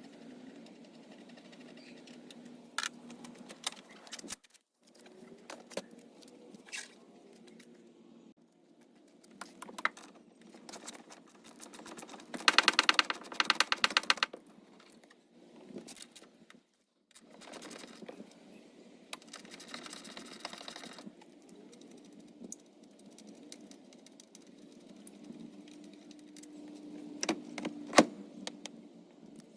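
A ratchet wrench clicking in quick runs, twice, with scattered clinks and knocks of tools on metal.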